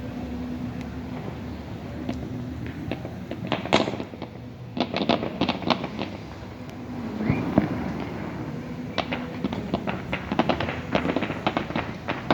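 Fireworks and firecrackers going off in rapid clusters of sharp cracks and pops, loudest in bursts near the middle and in the last few seconds, over a steady low hum.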